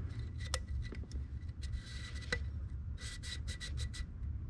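Light clicks and short rubbing scrapes as fingers work the loose coil spring of the oil filter standpipe's pressure bypass inside the open oil filter housing of a Ford 6.0 diesel, with a quick cluster of scrapes about three seconds in.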